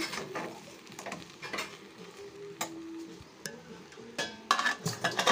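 Steel spoon stirring and scraping thick wheat-rava vermicelli upma around a metal kadai, with scattered clinks of spoon on pan. A louder run of clinks and scrapes comes in the last second.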